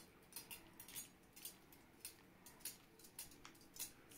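Faint, quick clicks and scrapes of a kitchen utensil, about three a second.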